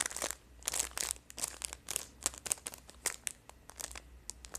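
Clear plastic packaging crinkling in quick, irregular crackles as a hand presses and moves over a wrapped pack of embroidery floss skeins.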